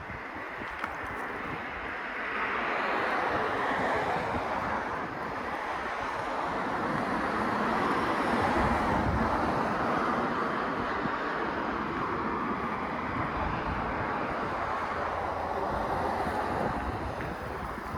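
Wind rushing and buffeting the microphone while riding an electric unicycle along a street. A steady rush slowly swells and eases, with gusty low rumble underneath.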